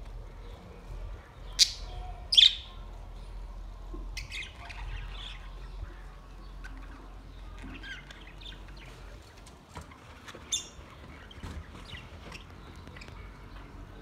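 A flock of budgerigars chirping and chattering in short high calls, with two loud sharp calls close together about two seconds in and another near the ten-second mark.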